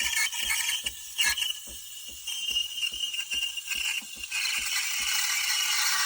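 Neretva espresso machine running its steam function: a steady hiss with rapid mechanical ticking, about five a second, that stops about four seconds in while the hiss goes on.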